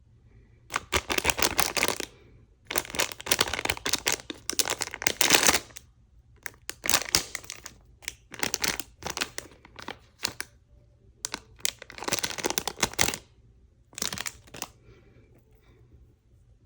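Packaging being crinkled and torn open by hand in about seven loud bursts of a second or two each, separated by short pauses.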